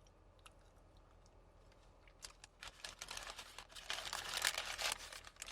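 Crackling, crinkling sounds from a Dunkin' Maple Bacon Snacker being handled and eaten, its paper wrapper and crisp bacon close to the microphone. A few light clicks at first, then the crackling builds from about halfway and is loudest near the end.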